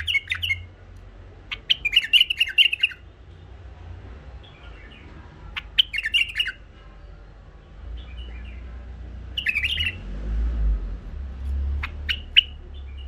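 White-eared bulbul singing in short bursts of chirpy, warbling phrases a few seconds apart, with a low rumble underneath.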